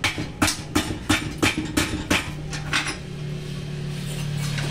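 A run of about nine sharp knocks, roughly three a second, stopping about three seconds in, over the Suzuki Raider 150 Fi's engine idling with a low hum.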